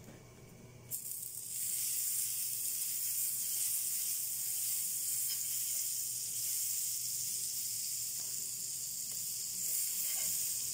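Butter hitting a hot flat griddle pan (tawa) and sizzling: a steady high hiss that starts suddenly about a second in and keeps on as the butter melts and foams.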